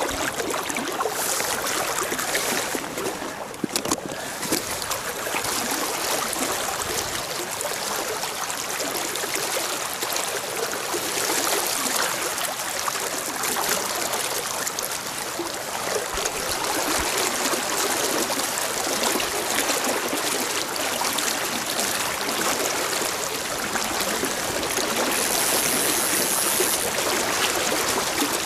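River water running steadily, a continuous rushing noise. A couple of brief knocks about four seconds in.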